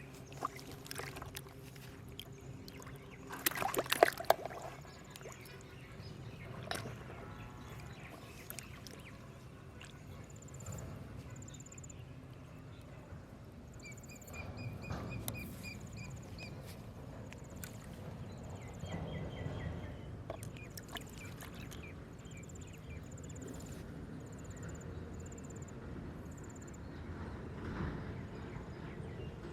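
Water sloshing and splashing at a river's edge, with a louder splash about four seconds in, and faint pulsed chirping through the middle.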